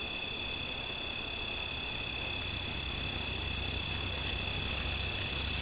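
Night insect chorus of crickets, a steady unbroken trilling at two high pitches, with a low hum underneath that grows a little louder in the second half.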